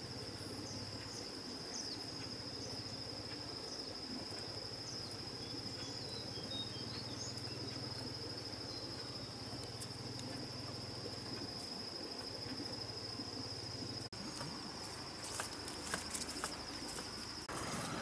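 Insects trilling in forest, one steady high-pitched drone, with short bird chirps over it in the first half. A few light clicks come in late, and near the end the trill cuts off as a louder rustling noise takes over.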